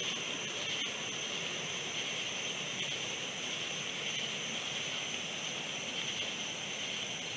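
Steady night chorus of insects such as crickets, an even high-pitched chirring with no change, over a faint background hiss.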